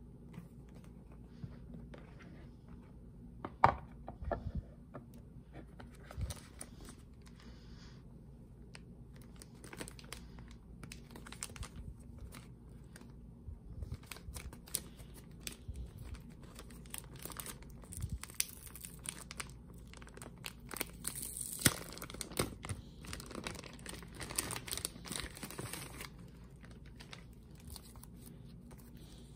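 Packaging handled by hand: a cardboard gift box opened and a clear plastic bag and wrapping crinkled and rustled, with scattered taps and clicks. A sharp click comes about four seconds in, and the crinkling is densest about two-thirds of the way through.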